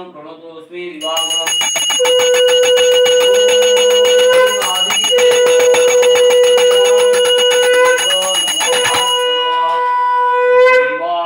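Conch shell (shankha) blown in three long blasts at one steady pitch, with short breaks between them. Under the first two blasts a puja handbell rings fast and continuously, stopping about nine seconds in.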